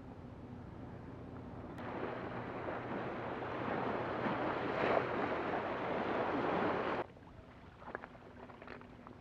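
Waves washing and splashing onto the rocks at the water's edge: a rushing surge that builds from about two seconds in, peaks midway and cuts off suddenly about two seconds before the end.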